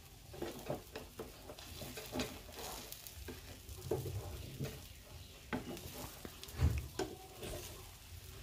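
Steel spatula scraping and prodding under a potato omelette in a pan, lifting its edge to check the browned underside, with oil sizzling quietly beneath. Scattered short scrapes and taps, and a low thud about two-thirds of the way through.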